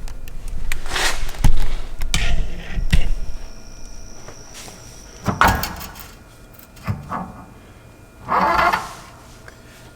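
Rear wheel bearing and hub assembly being pulled off the knuckle: a series of metal knocks and clunks, loudest about a second and a half in, with a few single knocks and a short scraping burst later.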